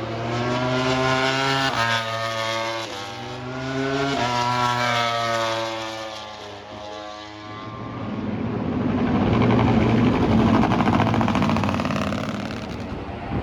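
Racing motorcycle engine accelerating hard, its pitch climbing and dropping back at each upshift, three times, followed by a loud swell of engine noise as motorcycles pass by and fade away.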